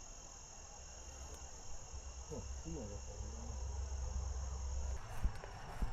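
Crickets chirping in a steady high-pitched chorus that weakens about five seconds in, over a low rumble.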